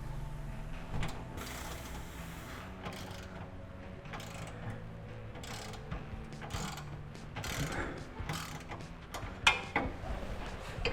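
Hand ratchet clicking in irregular spells while loosening the rear sway bar bracket bolts, with clinks of metal tools, over a steady low hum.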